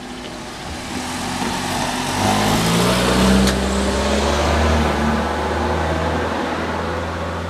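An unseen engine that grows louder over the first three seconds, then runs steadily with its low note stepping in pitch, before easing near the end.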